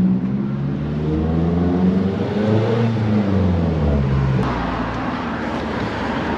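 A motor vehicle's engine passing close by, its note falling as it goes past, then fading into street noise about four and a half seconds in.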